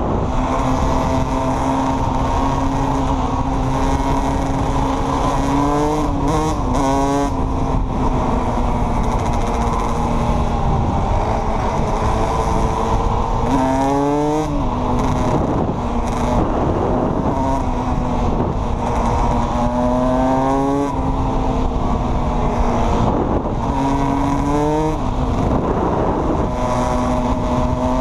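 Yamaha YFZ450 quad's engine running at a steady pitch under load during a wheelie, with a brief rise in pitch five times as the throttle is opened. Rushing wind and tyre noise lie underneath.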